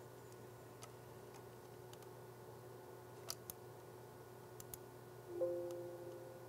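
A few faint clicks. Then, about five seconds in, a soft two-note chime sounds and fades away over about a second.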